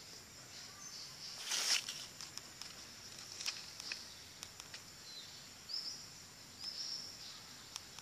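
Forest ambience: a steady high insect hum, with a few short chirps from about five seconds in. A brief rustling noise about one and a half seconds in is the loudest thing, and faint clicks are scattered through.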